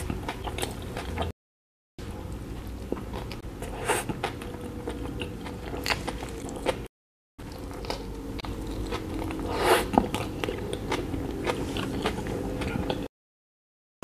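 Close-miked biting and chewing of a soft burger bun with its filling: wet mouth smacks and small crunchy clicks, broken twice by short gaps of dead silence.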